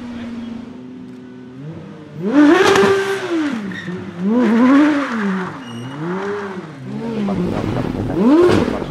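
Aston Martin Vulcan AMR Pro's naturally aspirated 7.0-litre V12 revving hard in four surges, the pitch climbing and falling each time, after about two seconds of a lower, steady engine note.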